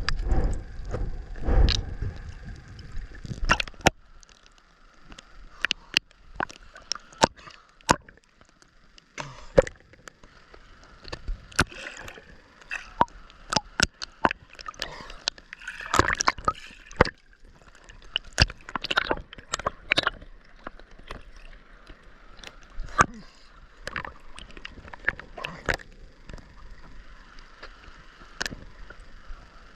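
Sea water sloshing and gurgling close to the microphone, with many irregular small splashes. The sloshing is heavier and deeper in the first few seconds.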